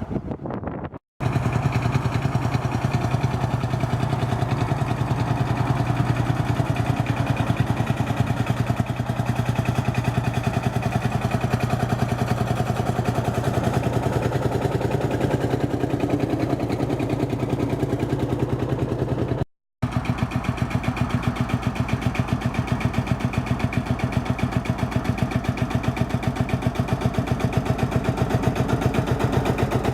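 Series 3 Field Marshall tractor's single-cylinder two-stroke diesel running through its freshly rebuilt exhaust, with a steady, even beat of firing pulses. The sound cuts out briefly twice.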